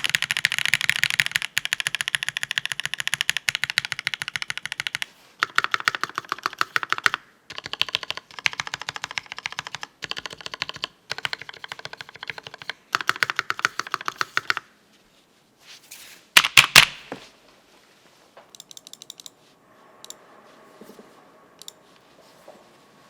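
Typing on a mechanical keyboard with a brass plate, Marshmallow switches and GMK Bleached ABS keycaps: bursts of rapid keystrokes with short pauses. The typing stops about two-thirds of the way through, followed by a few louder clacks and then faint scattered clicks.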